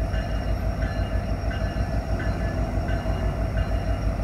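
Diesel-electric freight locomotives, an EMD SD70ACE leading two GE units, rumbling steadily as they approach at low speed, with a steady tone above the rumble and faint clicks repeating about every half second.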